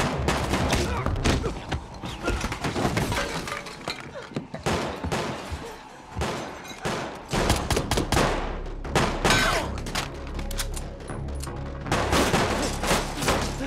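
Film gunfight mix: repeated gunshots with crashes and smashing, over a low music score. The shots thin out about four seconds in and come thick again from about eight seconds.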